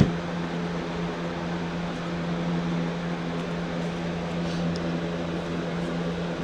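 A steady low hum with a few faint high ticks, the soft sound of trading cards being handled.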